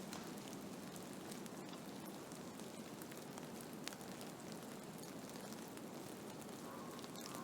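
Blizzard ambience: a steady hiss of wind-driven snow, with many small sharp ticks scattered through it.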